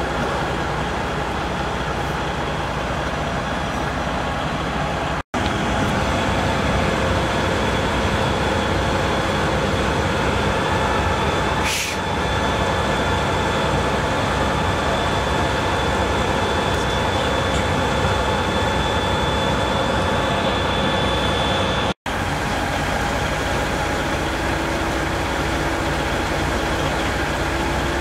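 Fire apparatus diesel engines running steadily, with a low drone and faint steady whines over it; the drone drops out for an instant twice, and a short hiss comes about twelve seconds in.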